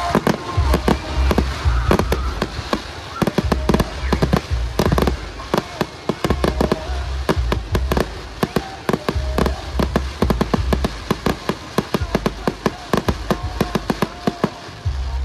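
Fireworks going off in quick succession: a dense string of sharp cracks and pops, several a second.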